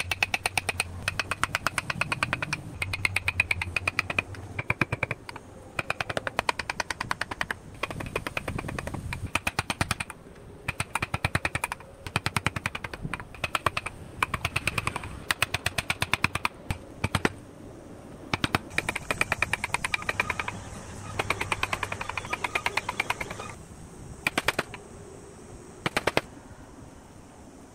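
Steel chisel being driven into cypress wood in rapid trains of sharp strikes, several a second, in bursts of one to three seconds with short pauses between, and a low hum under the bursts. A few single strikes come near the end.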